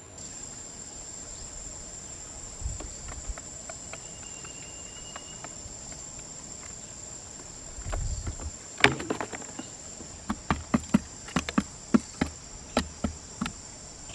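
Insects droning steadily at a high pitch. Over the last five seconds a run of sharp knocks, roughly two a second, cuts in, louder than the drone.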